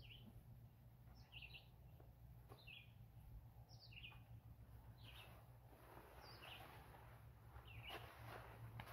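A small bird chirping repeatedly, one short high chirp about every second and a half. From about halfway through there is faint rustling of a nylon tarp being pulled out of its stuff sack.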